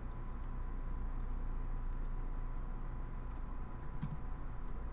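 A few sharp clicks at the computer, roughly one a second, over a steady low electrical hum with a faint high whine.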